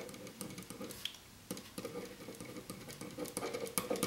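Marker pen writing on paper: a run of short, quick scratching strokes as the letters are drawn.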